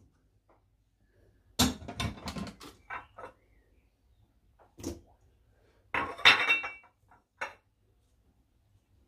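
Cut potato and carrot pieces tipped off serving dishes into a mixing bowl, clattering and knocking against the dish and bowl. The sound comes in two clusters, the first about a second and a half in and the second about six seconds in, with a few single knocks between.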